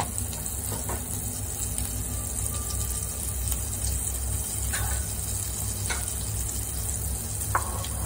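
Butter sizzling as it melts and foams in a hot nonstick frying pan, a steady hiss with a few brief crackles, over a steady low hum.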